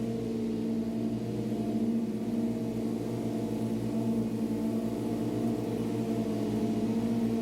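Riding lawn mower engine running steadily at a constant speed, a steady drone with an even low pulse.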